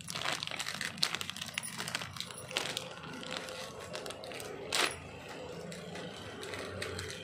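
Clear plastic zip-lock bag crinkling and rustling as hands handle it, in many short crackles, with one louder rustle about five seconds in.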